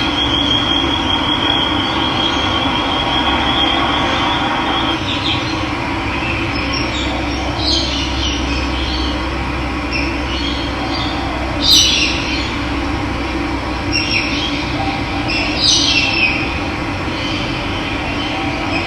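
Steady rush of running water with birds calling over it. A high, even trill runs for the first five seconds, then short, sharp calls come several times, the loudest about twelve seconds in.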